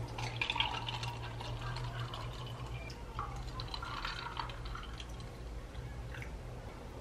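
Cold brew coffee poured in a thin stream from a bottle into a glass packed with ice cubes: liquid splashing and trickling over the ice with light crackles. The splashing thins out in the second half as the glass fills.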